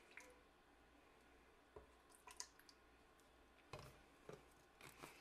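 Faint, near-silent sounds of kefir being poured from a plastic bottle into a blender jar of frozen berries: a few small drips and clicks, then a soft knock about three and a half seconds in as the bottle is set down on the counter.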